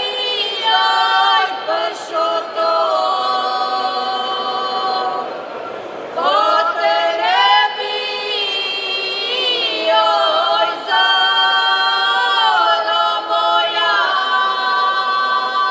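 A group of women in folk costume singing a cappella, holding long notes together that slide up and down in pitch.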